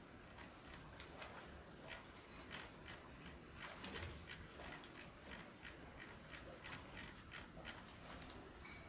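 Faint, irregular light clicks and taps, a few each second, over a quiet room.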